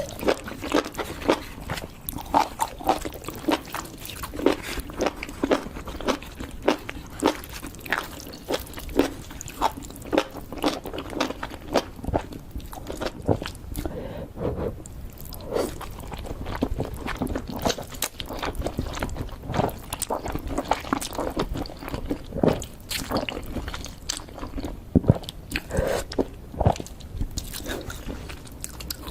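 Close-up eating sounds: an assortment of crunchy sweets being bitten and chewed, with sharp crunches coming about once or twice a second.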